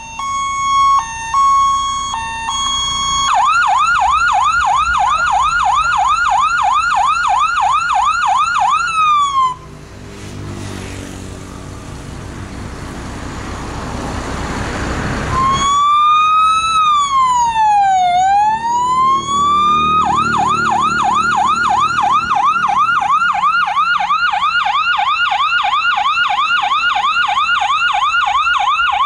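Electronic siren sound effect played loud through a sound car's trunk loudspeakers: a few seconds of switching steady beeps, then a fast repeating yelp. About ten seconds in it gives way to a rush of noise that swells for several seconds, then one slow wail dips and rises before the fast yelp resumes.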